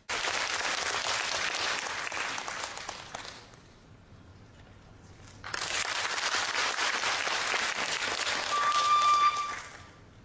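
Audience applauding in two rounds. The first fades out after about three seconds, and the second starts about two seconds later and dies away near the end. A short, steady high note sounds over the second round just before it ends.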